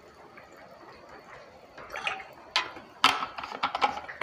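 Plastic drinking bottle handled close to a clip-on microphone: faint sounds at first, then from about two and a half seconds in a run of sharp plastic clicks and knocks as its flip-top lid is worked shut.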